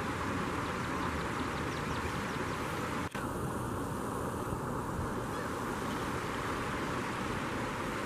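Steady outdoor background noise of flowing river water, with a few faint high bird calls; the sound drops out for an instant about three seconds in.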